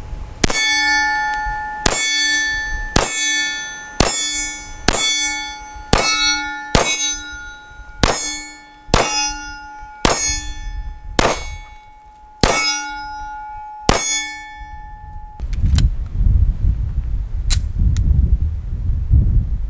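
About a dozen 9mm pistol shots from a SIG Sauer P226 Legion SAO, fired at roughly one a second. Each shot is followed by the ringing clang of a hit steel target. The shooting stops about 15 seconds in.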